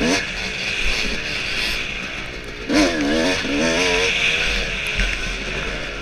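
Yamaha dirt bike engine at race pace, revs rising and falling repeatedly as the throttle is worked, with a sharp rev-up about halfway through, heard from the rider's helmet camera.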